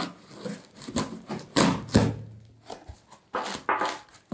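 A taped cardboard box being slit open with a knife and its flaps pulled back: several short, sharp cracks and rustles of cardboard and tape, the loudest about two seconds in.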